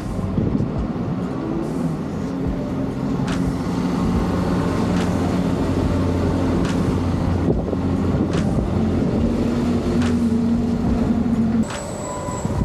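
Road traffic: a motor vehicle's engine running with a steady low hum, heard from the street. The sound changes abruptly and drops in level near the end.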